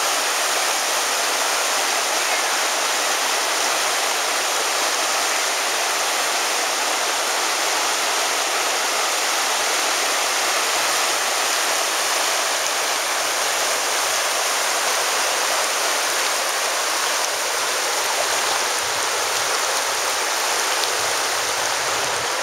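The Virgin River flowing: a steady rush of water that does not let up.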